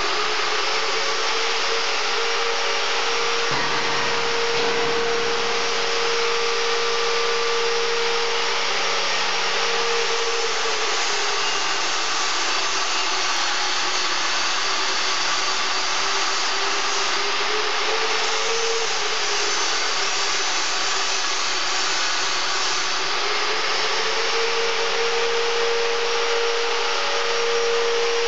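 Electric angle grinder running continuously as its disc grinds the joints of a welded steel tube frame, giving a dense, steady hiss with a motor whine. The whine dips lower in pitch for a while midway through and climbs back up near the end.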